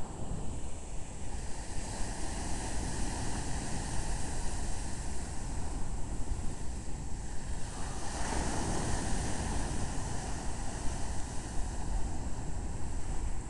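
Mediterranean Sea waves washing on the shore, with one louder surge about two-thirds of the way through. Wind buffets the microphone throughout.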